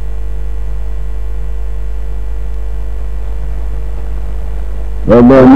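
Steady low electrical hum with a faint steady higher tone above it. About five seconds in, a loud drawn-out melodic chant cuts in.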